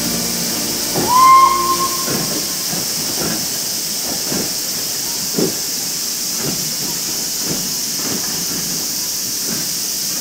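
Steam locomotive with a steady hiss of steam, a short whistle blast about a second in, then even exhaust chuffs about two a second.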